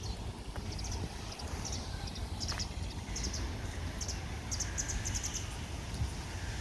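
Small birds chirping in short, high notes, several in quick runs through the middle, over a steady low rumble of wind on the microphone.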